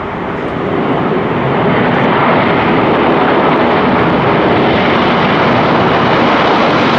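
Cargo jet's engines at takeoff thrust, a loud steady rush of noise that grows louder over the first two seconds and then holds.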